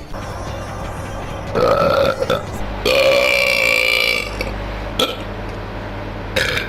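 A man burping: a short burp about a second and a half in, then a longer, drawn-out burp about three seconds in lasting over a second, and another starting near the end.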